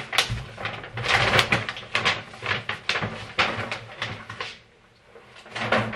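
Plastic grocery bags rustling and crinkling as items are handled and pulled out, in irregular bursts, with a short lull about five seconds in and another burst near the end.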